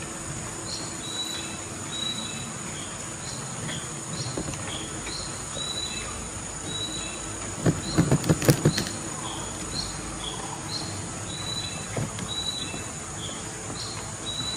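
Outdoor animal ambience: a steady high insect drone, with a short high chirp repeated over and over about once or twice a second. About eight seconds in comes a quick cluster of sharp knocks.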